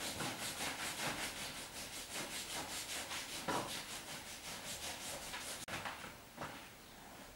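Hands rubbing briskly back and forth on a patient's hip and lower back in a massage, an even rhythm of about five strokes a second that stops a little over five seconds in.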